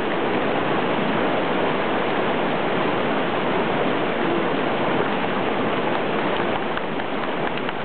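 River water rushing steadily, a loud even roar of fast-flowing water.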